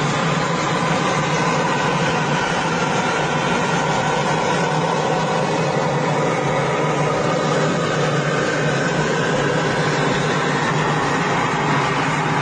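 Steady cockpit noise of an F-14 Tomcat fighter jet running: an unbroken low hum under an even hiss, with no change in pitch or level.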